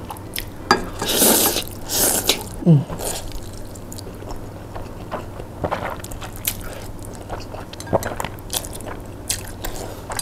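Close-miked eating of chicken noodles: two long slurps in the first two seconds or so, a short low sound falling in pitch just before the three-second mark, then wet chewing with scattered lip smacks and clicks.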